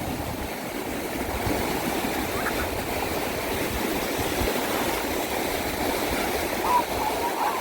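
Sea waves washing onto a beach: a steady, unbroken rush of surf.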